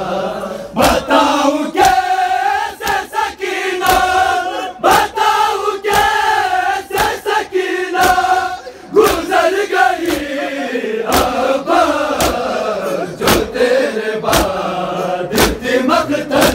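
Crowd of men chanting a noha in unison, with sharp slaps of chest-beating matam landing together about once a second to mark the beat.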